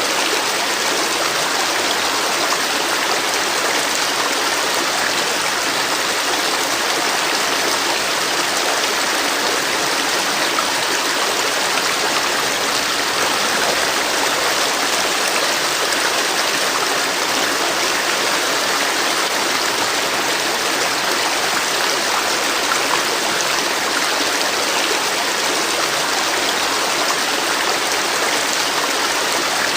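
River water flowing and rushing over rocks, a steady, even splashing with no change.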